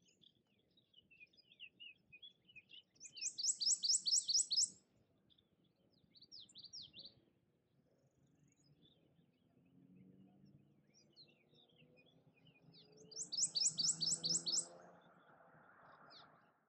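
Prothonotary warbler singing twice, each song a loud run of about nine ringing notes on one pitch, over the scattered chattering chirps of cliff swallows. A low hum, slowly rising in pitch, builds in the second half.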